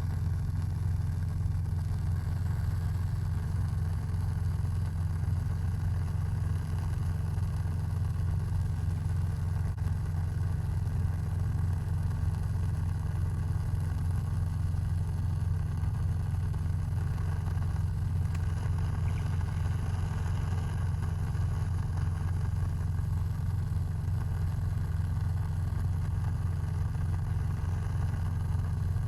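Vehicle engine running with a steady low hum that does not rise or fall.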